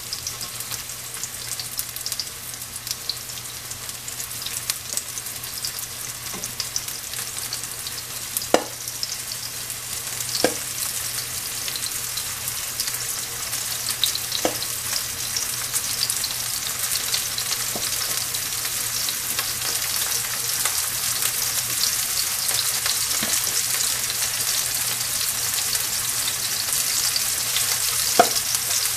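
Marinated shrimp sizzling in hot oil in a nonstick frying pan, the crackle growing louder as more shrimp are laid in. A few sharp clicks stand out above it.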